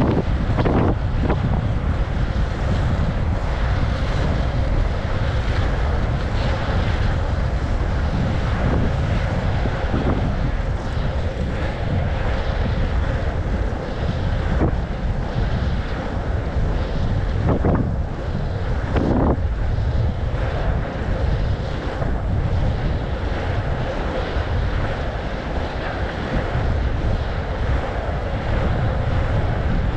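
Steady wind rushing over the microphone at racing speed, over the rolling of inline speed skates on asphalt.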